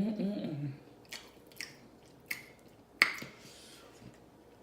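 Close-up wet mouth sounds of someone eating seafood: a handful of sharp, separate smacking clicks, the loudest about three seconds in. It opens with a brief voiced sound from the eater.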